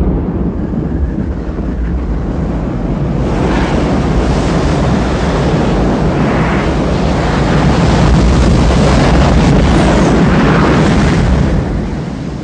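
A loud, low rumbling and rushing noise like a strong wind. It is a dramatised sound effect of a meteor impact's blast and its aftermath. It swells about three seconds in and drops away shortly before the end.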